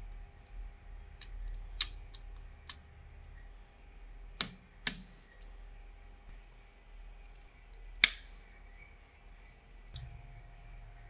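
Lego Technic pieces being pressed together by hand: several sharp plastic clicks at irregular intervals as beams and pins snap into place.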